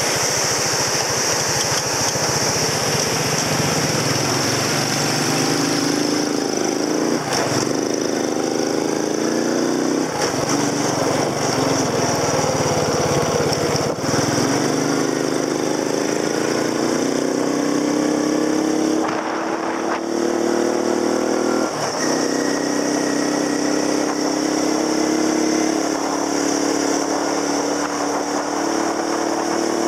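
Small motorcycle engine running steadily at first, then pulling away and cruising, its pitch rising and falling several times with the throttle, over steady wind and road noise.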